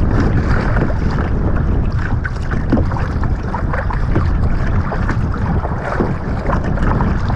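Water sloshing and splashing against a moving kayak's hull, with wind buffeting the microphone.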